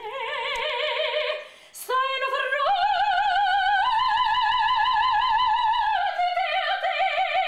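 A soprano voice singing operatically, unaccompanied: long held notes with wide vibrato. A first note breaks off about two seconds in, then a longer line steps up to its highest notes in the middle and drops back down a little near the end.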